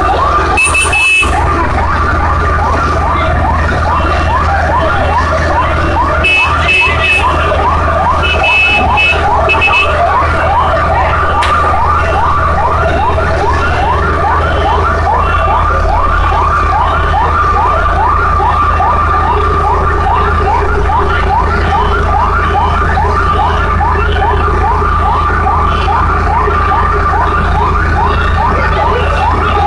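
Emergency vehicle siren in a fast yelp: rapid rising sweeps, several a second, sounding continuously over a steady low rumble. Short high beeps sound a few times in the first ten seconds.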